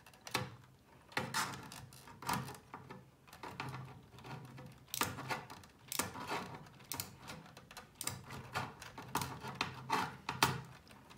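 Irregular clicks, taps and rubbing from a small metal speaker-terminal plate and its wires being handled and fitted into an amplifier's rear panel.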